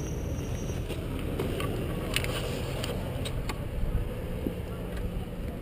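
Motorcycle engine running with a steady low rumble, with a few sharp clicks and knocks between about one and four seconds in.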